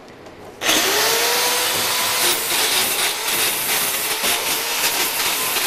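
Handheld electric angle grinder switched on a little under a second in, spinning up and grinding metal: a loud, steady hiss over a steady motor whine. It is grinding a flat spot on the bottom of a scrap metal piece so that it makes good contact with the metal welding table.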